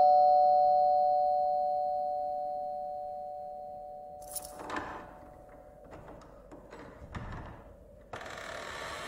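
Two-note 'ding-dong' doorbell chime, the higher note then the lower, ringing out and fading away over about four seconds. A few faint clicks and knocks follow, and a rush of noise starts near the end.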